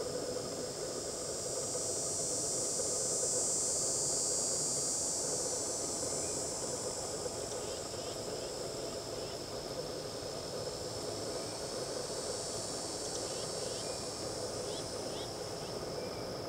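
Steady high-pitched chorus of insects such as crickets, swelling a little a few seconds in, with a few faint short chirps in the middle and towards the end.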